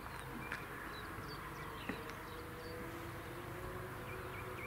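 Quiet open-air ambience with small birds chirping now and then, over a faint hum that slowly rises in pitch.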